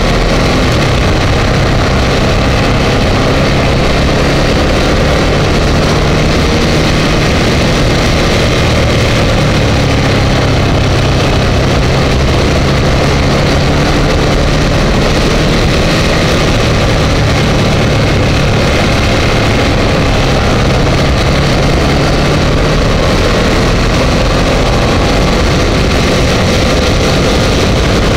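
Ducati Multistrada 1200 S V-twin engine running at road speed, recorded by a camera mounted on the bike, with heavy wind and road noise over it. The engine note rises near the end.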